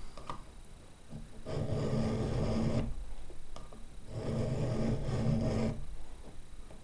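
Round file drawn through a chainsaw chain's cutter tooth in a roller file guide, rasping. There are two slow strokes, each about a second and a half long, with a short pause between them.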